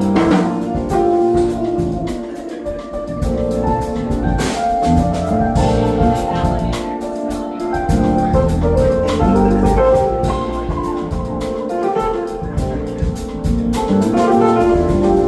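Band music: a drum kit playing under several pitched instruments holding and moving through melodic lines.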